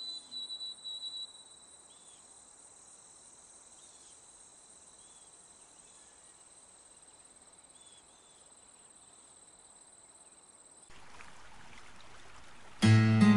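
Faint, steady high-pitched insect trilling with no speech. It follows the tail of background music, an even hiss comes in near the end, and guitar music starts just before the end.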